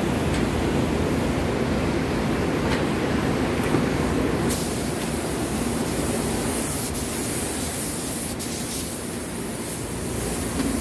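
Compressed-air paint spray guns hissing steadily as finish is sprayed onto wooden furniture, over a steady low rumble. The high hiss gets brighter about halfway through.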